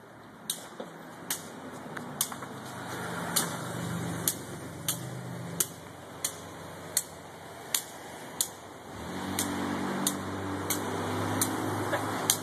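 Sharp slaps of hands batting a small ball back and forth in a rally, about one hit every two-thirds of a second. A vehicle engine hums past twice, swelling around the middle and again in the last few seconds.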